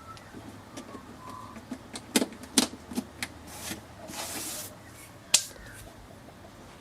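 A few sharp plastic clicks and knocks from handling the Yamaha PSR-172 keyboard, three close together a couple of seconds in and one more later, with a short rush of rubbing noise in between.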